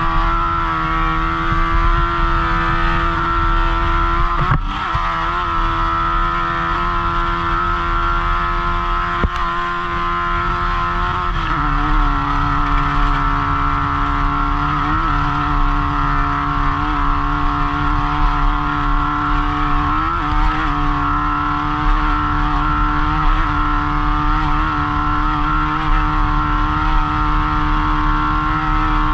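Off-road race vehicle's engine running hard at a steady high speed, heard from the cockpit. Its pitch dips briefly a few times as the throttle eases, and it settles slightly lower about eleven seconds in.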